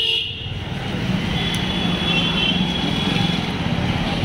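Motorcycle and scooter traffic on a crowded street, with a steady engine hum through the middle. A horn that has been sounding stops just after the start.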